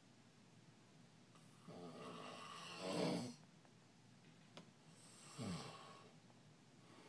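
A man snoring in his sleep. A long snore on the in-breath grows louder to a peak about three seconds in. About two seconds later comes a shorter out-breath that falls in pitch.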